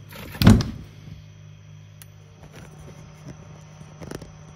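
A single heavy thump about half a second in, then a few fainter knocks, over a steady low hum.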